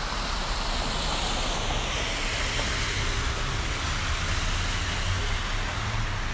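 Steady rushing hiss of floodwater from a utility main break running along a street, with a faint low rumble underneath.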